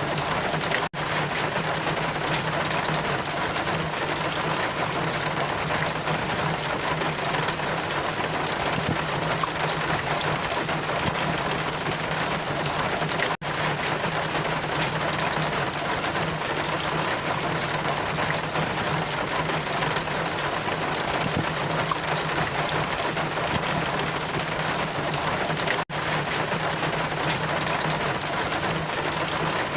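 Steady rain with wind, an even hiss with a low steady hum underneath, broken by three brief dropouts about twelve seconds apart.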